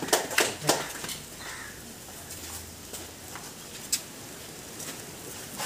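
A few scattered hand claps in the first second, then steady background noise with an occasional single click.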